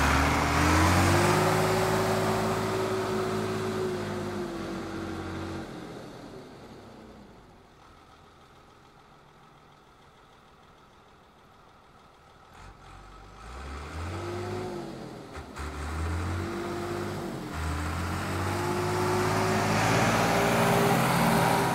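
Small engine of a lawn garden tractor running and revving up, fading to faint about six seconds in, then growing louder again from about thirteen seconds with the revs rising and falling.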